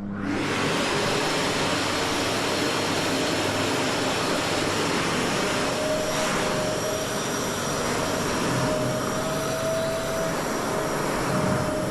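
A vacuum cleaner switched on and running steadily, a loud rush of air with a steady whine, sucking dust off glass panels.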